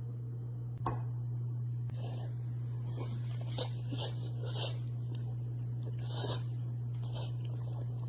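Soft, irregular crackling and rustling from food being handled, over a steady low hum.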